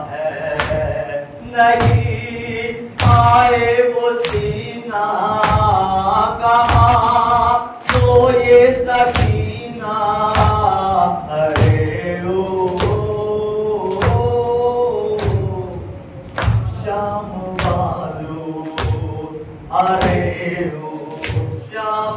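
A man's voice chanting an Urdu noha (Shia lament) in a sustained, melodic recitation, over steady matam chest-beating thumps about once a second that keep the rhythm.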